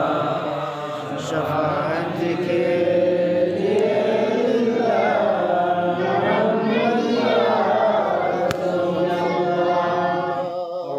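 Voices chanting durud (salawat on the Prophet) together in a slow, drawn-out melody with long held notes.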